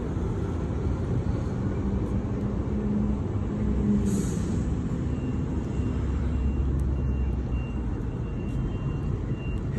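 Road traffic: a steady low rumble of passing heavy vehicles, with a brief high hiss about four seconds in.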